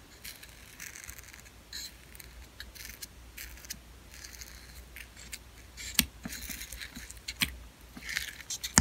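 Fingers pressing and poking thick, foamy slime made with lotion and foaming hair soap in a plastic tub, giving irregular small sticky clicks and crackly pops, with a sharper click about six seconds in.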